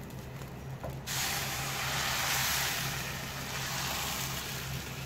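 Steady hiss from a hot iron kadai on a lit gas burner as the appam batter cooks. It starts abruptly about a second in.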